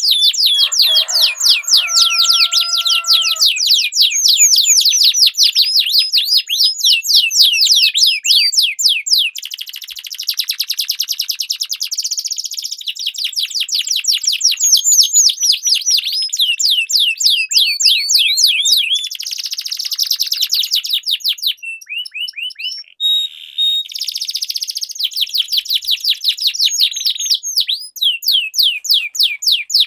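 Domestic canaries singing long rolling trills: rapid runs of repeated high, downward-sweeping notes that change speed from phrase to phrase, with only a brief pause past the middle.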